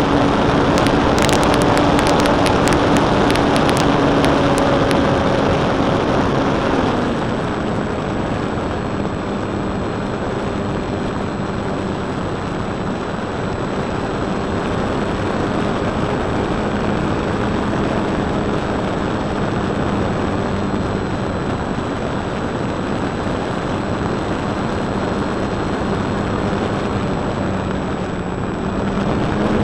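Electric motor and propeller of a Precision Aerobatics Extra 260 model plane in flight, heard from a camera taped under the airframe: a steady drone under heavy wind rush on the microphone. The motor slows and the drone drops in pitch about seven seconds in, then rises again near the end. There is a flurry of sharp clicks in the first few seconds.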